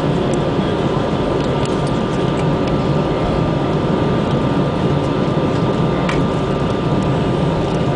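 Airbus A320 cabin noise while taxiing: a steady hum of the engines and airflow with the rumble of the wheels on the taxiway, a faint steady whine, and a few light clicks.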